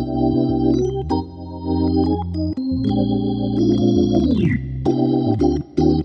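Nord C2 organ in Hammond B3 sound playing jazz on both manuals: long held chords, a quick downward slide in pitch a little past four seconds in, then short chord stabs.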